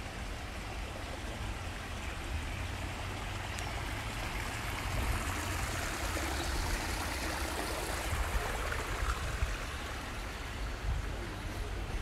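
Steady rush of running water, like a small stream, growing louder partway through and easing off near the end, over a low rumble.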